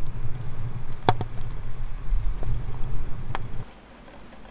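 Wood fire burning inside a brick-lined tandoor: a steady low roar with two sharp crackles, about a second in and again near the end. The roar cuts off suddenly a little before the end.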